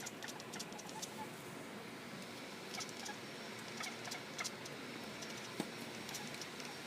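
Domestic cat chattering at a bird: faint, irregular clicks and soft chirps from the quivering jaw, the excited noise cats make when they see prey they can't reach.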